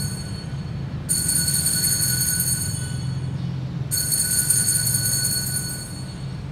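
Altar bells rung at the elevation of the host during the consecration: a bright, high ringing that sounds once about a second in and again about four seconds in, each fading over about two seconds, with the tail of an earlier ring dying away at the start.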